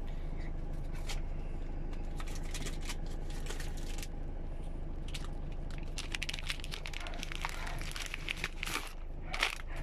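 Crinkling and rustling of plastic packaging being handled, in irregular bursts of small crackles that are busiest near the middle and toward the end, over a steady low hum.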